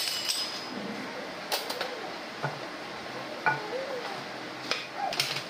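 A handful of sharp clicks and knocks, scattered irregularly, with faint voices in the background.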